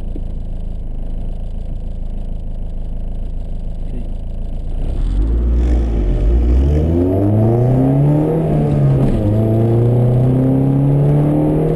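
1992 Honda CRX's 1.6-litre four-cylinder engine with an aftermarket exhaust, running low and steady at first, then revving up hard about five seconds in as the car accelerates. The pitch dips briefly around a gear change and then holds high.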